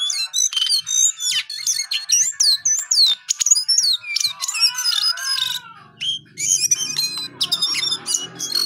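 Male jongkangan, a caged bulbul, singing a fast, varied chatter of sweeping whistled notes, with a short lull about two-thirds of the way in. A low background hum comes in about halfway through.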